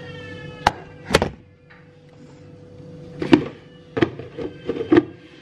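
A plastic insulated casserole handled on a hard kitchen counter: its lid and body knock and clatter against the counter about five times.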